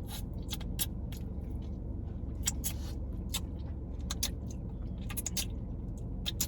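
Close-up eating sounds while working through boiled seafood: scattered short, sharp clicks and crackles of mouth and shell, irregular, over a steady low hum.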